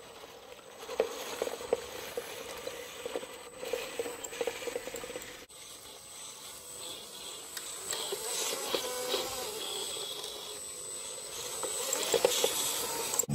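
Electric drive of a WPL B24 GAZ-66 6x6 RC truck whining thinly as it drives, with its tyres crunching and clicking over dirt and gravel. The sound breaks off briefly about five and a half seconds in and grows louder near the end.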